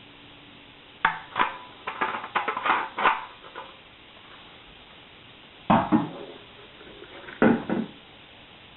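Hard plastic humidifier parts being handled: a run of clicks and knocks over a couple of seconds, then two heavier knocks about two seconds apart.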